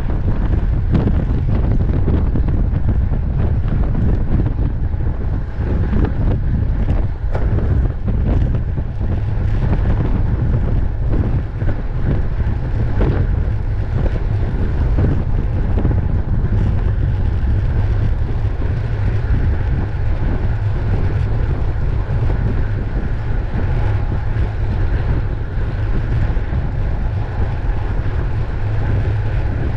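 Steady wind buffeting the microphone of a camera on a racing bicycle moving at race speed, a loud low rumble with rushing noise above it.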